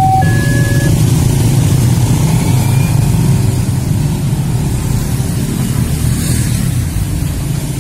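Level-crossing electronic alarm tones cutting off about a second in, under the steady running of motorcycle and car engines as the traffic moves off across the tracks.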